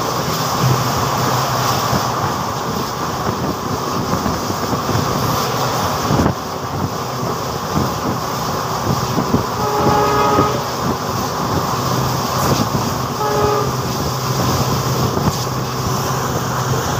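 Express passenger train running at speed, heard from an open coach door: a steady rumble of wheels on rail and rushing air, with a single sharp knock about six seconds in. A train horn sounds briefly twice, about ten seconds in and again about thirteen seconds in.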